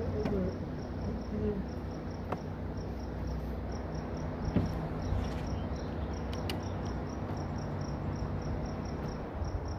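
Crickets chirping at night: a steady run of evenly spaced high chirps over a low, steady hum, with a few faint clicks.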